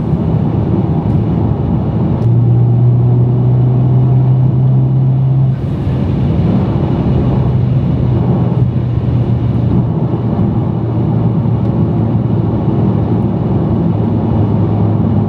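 Honda Civic Type R FL5's 2.0-litre turbocharged four-cylinder cruising in sixth gear, heard from inside the cabin: a steady low exhaust drone over tyre and road noise, through a Spoon N1 muffler with both resonators deleted. The drone drops off briefly about five and a half seconds in, then carries on a little softer.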